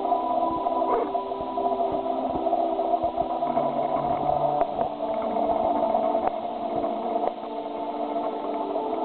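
Muffled, tinny music of held notes that change pitch every second or so, as if played through a small radio or laid in from a low-quality source.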